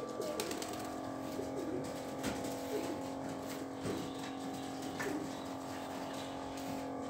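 Domestic pigeons cooing in short, repeated phrases, over a steady hum with scattered sharp clicks.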